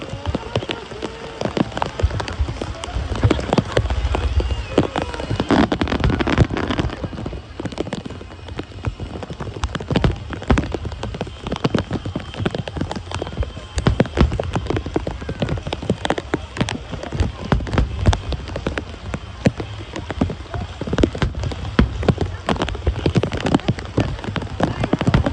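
Fireworks crackling: a dense, rapid crackle like heavy rain, with low booms beneath it.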